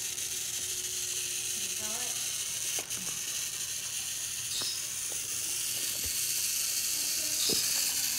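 A battery-powered toy train locomotive's small geared motor whirs steadily as it pulls its cars along a wooden track. A few light clicks sound over it.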